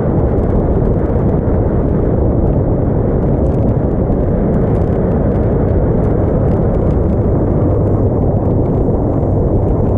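Small aluminium motorboat under way: a steady rush of wind on the microphone and water against the hull, with a low engine hum beneath.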